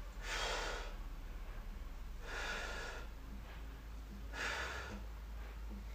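A woman breathing hard from exertion: three forceful, breathy exhales about two seconds apart.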